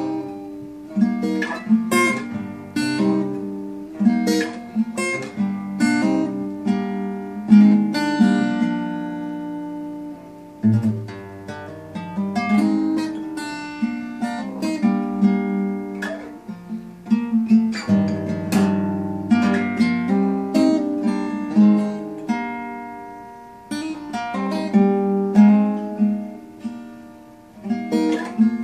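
Acoustic guitar with a capo on the neck, played by hand in a melodic passage of plucked notes and chords, with a few chords left to ring and fade, once about a third of the way in and again about two-thirds of the way in.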